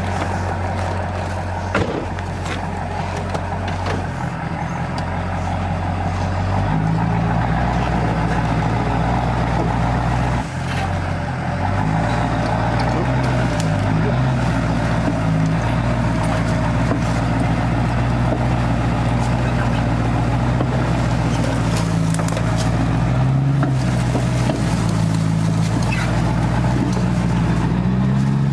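Engine of the vehicle used in the recovery, running steadily. It revs up about seven seconds in, drops off briefly near ten seconds, then keeps running at the higher speed with small rises and falls as it works.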